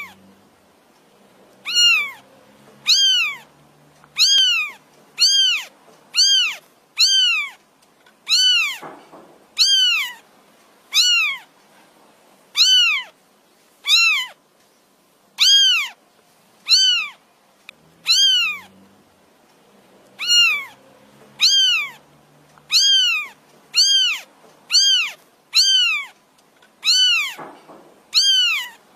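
A kitten meowing over and over, about one high-pitched call a second, each call rising and then falling in pitch; insistent calling that the owner takes for the kitten crying for its mother.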